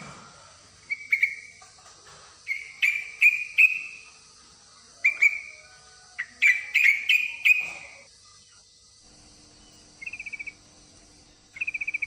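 Yellow-vented bulbul (trucukan) calling: short, bright whistled notes in quick groups of two or three, then two brief rapid rattling trills near the end. These are the calls of a female in breeding condition calling for a male.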